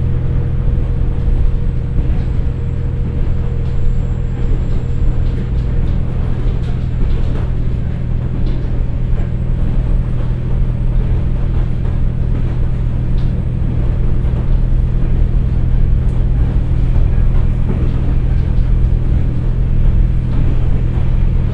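Inside the passenger cabin of a KiHa 47 diesel railcar running at a steady cruising speed of about 67 km/h. Its Komatsu diesel engine and KTF3335A transmission give a steady low drone over the rumble of wheels on rail. A fainter higher whine fades out about six seconds in.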